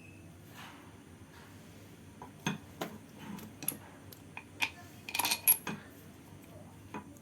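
Metal clinking and clanking: a string of sharp knocks and clicks as hand tools or metal car parts are handled and knocked together. A short cluster of ringing metallic hits comes about five seconds in.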